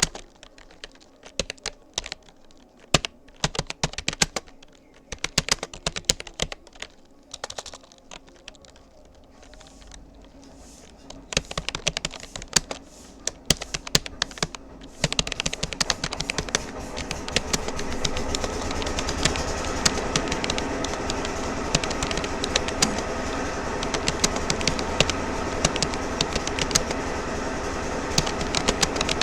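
Typing on a Rapoo computer keyboard: irregular runs of keystroke clicks with short pauses. About halfway through, a steady noise comes up and stays under the typing.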